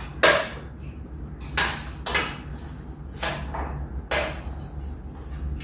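Forks and spoons clinking and scraping against plates as people eat: about half a dozen sharp clinks, unevenly spaced.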